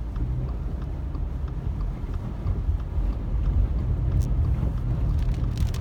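Steady low rumble of a car driving on a rain-soaked road, heard from inside the cabin, with the hiss of tyres and heavy rain over it.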